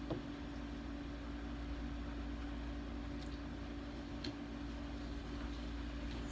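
Steady low hum with a constant faint tone, and two faint light ticks, one right at the start and one about four seconds in.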